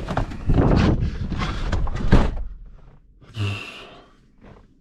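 Strong wind blowing on the microphone, dropping away about two seconds in as the cab is entered; a pickup truck door shuts with a thunk about three and a half seconds in.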